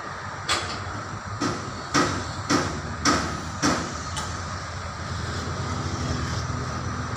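Diesel engine of a truck-mounted crane running steadily, with a series of about seven sharp metal clanks, roughly two a second, in the first four seconds.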